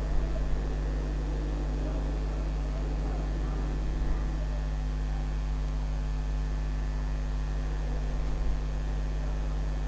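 Steady low electrical mains hum with a faint hiss underneath. A few faint brief noises come about half a second, four seconds and eight and a half seconds in.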